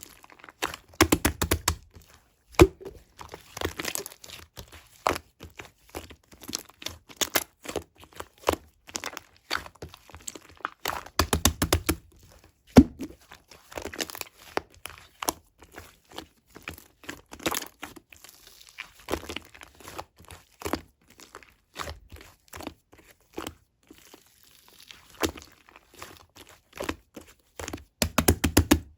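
Slime mixed with clay being kneaded, stretched and pressed by hand: a run of sticky pops and clicks as air pockets burst, with a few heavier squishing presses about a second in, around the middle and near the end.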